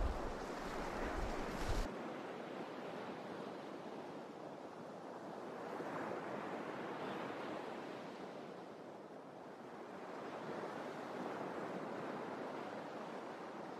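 Wind buffeting the microphone for about the first two seconds, then a steady rushing of wind and surf on the open coast that slowly swells and fades every few seconds.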